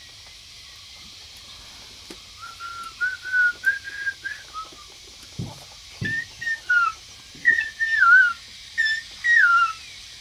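Whistling: a run of clear held notes that step up in pitch, then shorter notes that slide downward.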